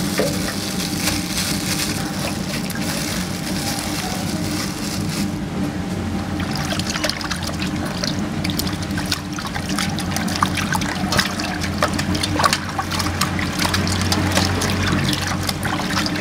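Hands washing pieces of raw beef in a metal basin of water, the water sloshing and splashing as the meat is rubbed and turned. A steady low hum runs underneath.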